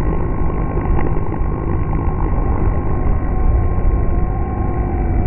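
Electric motor and propeller of a Skywalker FPV RC plane in flight, droning steadily, picked up by a camera strapped to the fuselage, with heavy wind rush on the microphone.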